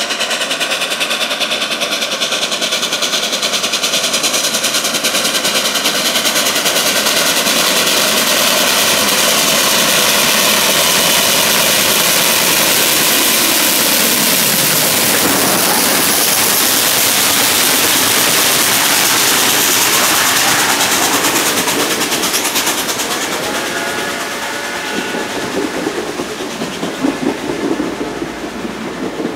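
Reading 2102, a 4-8-4 steam locomotive, running hard with rapid exhaust beats as it approaches and passes close by about halfway through, its sound dropping in pitch as it goes. Then its passenger cars roll past with wheel clatter on the rails.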